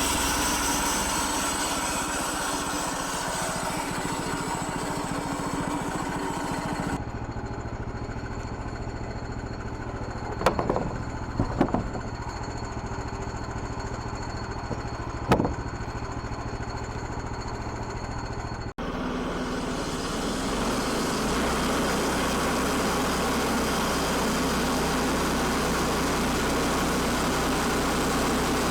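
A sawmill's engine running steadily while a log is milled into boards. In a quieter middle stretch, set off by two abrupt cuts in the sound, a low hum carries a few sharp knocks.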